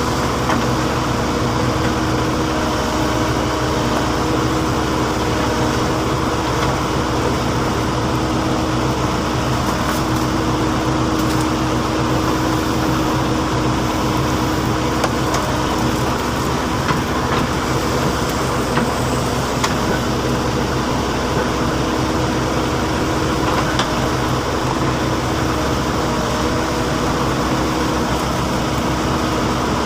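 Backhoe loader's diesel engine running steadily at a constant pitch, with a few faint knocks now and then.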